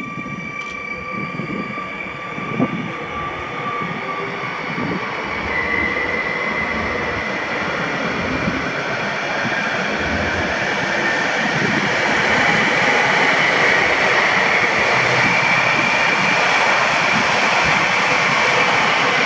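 Stadler FLIRT electric multiple unit (Koleje Mazowieckie ER160, two sets coupled) pulling out and rolling past close by. Its rolling noise grows steadily louder, with a steady high electric whine.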